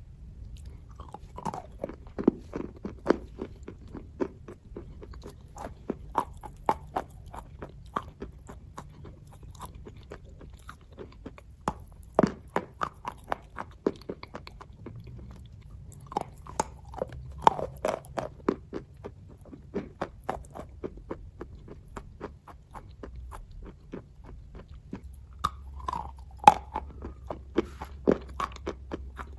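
A person chewing kaju katli (cashew fudge): sharp, sticky mouth clicks and smacks in irregular clusters, with short pauses between bites.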